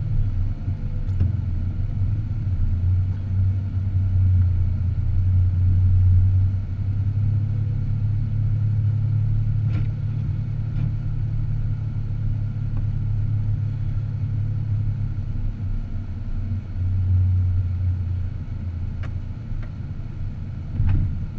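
Car driving: a steady low engine and road drone that shifts in pitch about 7 seconds in and again around 17 seconds.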